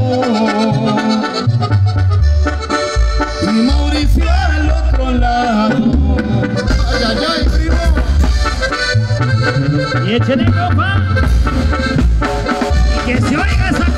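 Tamborazo band playing a dance tune live: wind instruments carry a wavering melody over deep, pulsing bass notes.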